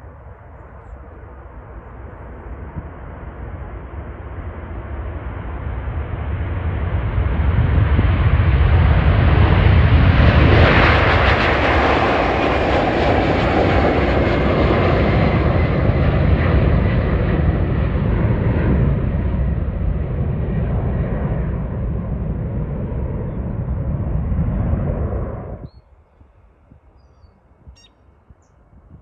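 Large military jet aircraft passing by, its engine noise building steadily to a peak about ten seconds in, with a whine that falls slowly in pitch as it goes past. The noise then cuts off suddenly about 26 seconds in.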